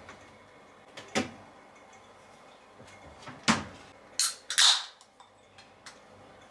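A few short handling sounds: a knock about a second in, another a little past the middle, then two brief rustling swishes, the second the loudest.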